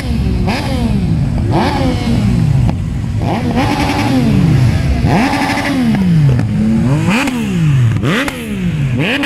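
Several motorcycles ride past one after another, their riders blipping the throttles so that the engine pitch repeatedly climbs and drops, about once a second.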